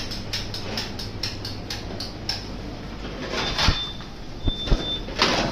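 Clicks and knocks of freezer parts being handled during reassembly: a quick run of clicks, about four a second, for the first two seconds, then a scrape with a knock, two short knocks, and another scrape near the end, over a steady low hum.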